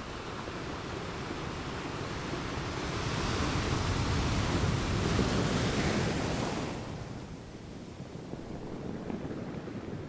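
Sea surf: a wave swells up to a peak about halfway through and washes away, then a smaller swell follows near the end.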